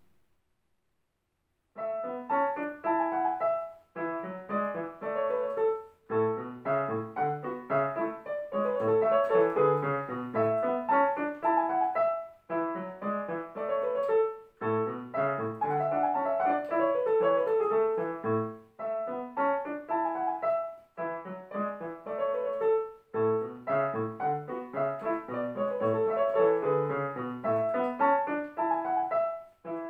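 Digital piano playing a brisk classical piece in short phrases with brief breaks between them, starting about two seconds in after silence.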